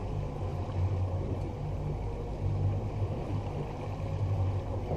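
Boat engine running steadily at trolling speed, a low even drone that swells and eases slightly.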